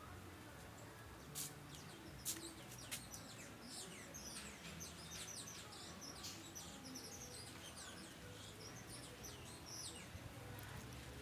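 Small birds chirping: many short, high, falling chirps in quick succession. A few sharp clicks come first, in the opening seconds.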